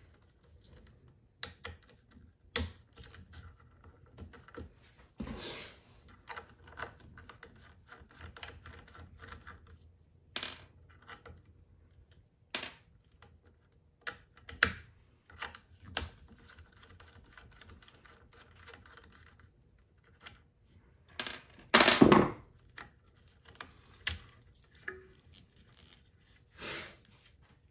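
Irregular clicks, taps and knocks of hand tools and small metal and plastic parts being handled while an X-Carve CNC machine is taken apart, with a louder, longer clatter about 22 seconds in.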